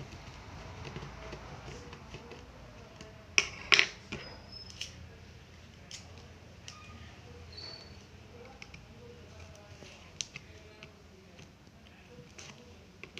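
Small screwdriver and screw clicks on the bottom cover of a Dell Inspiron 13 5568 laptop as its cover screws are taken out, with two sharper clicks close together about three and a half seconds in and lighter scattered ticks after.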